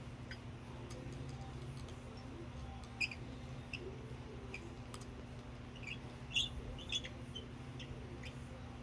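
A few scattered clicks and light metal clinks from hand tools working bolts loose on a manual sandbox backhoe, the loudest about three seconds in and two more a little past six seconds, over a steady low hum.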